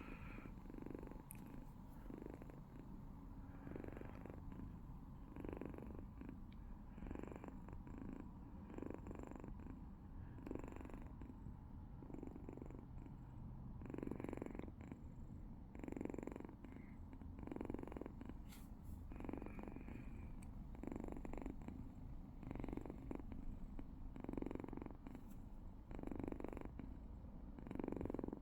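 Kitten purring in a steady rhythm of swells, about one a second, with a raspy sound much like snoring.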